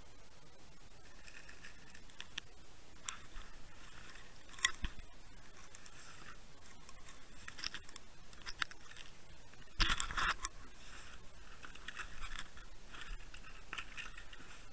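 Muffled clicks, scrapes and knocks picked up by a camera underwater in its housing, over faint steady water noise, with a louder scraping cluster about ten seconds in.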